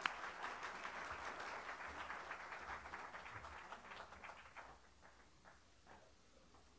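A small seated audience applauding. The clapping dies away about four and a half seconds in, with a few last claps after.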